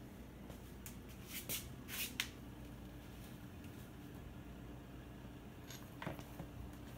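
A cat scuffling with a plush toy and a shoe on a hardwood floor: a few short rustles and scrapes, bunched about a second and a half to two seconds in and again near six seconds. A low, steady hum sits underneath.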